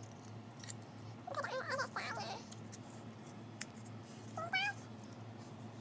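A domestic cat meowing twice: a wavering meow about a second and a half in, and a shorter, rising meow about four and a half seconds in.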